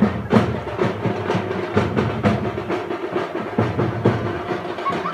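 Music driven by loud, fast drumming, several irregular strokes a second.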